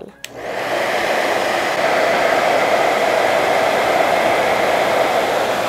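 Handheld hair dryer switched on with a click a fraction of a second in, then blowing steadily through a plastic spiral diffuser tube attachment.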